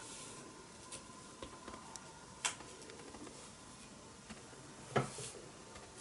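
Quiet room tone with a faint steady hum and a few small scattered clicks: a sharp click about two and a half seconds in and a duller, louder knock about five seconds in.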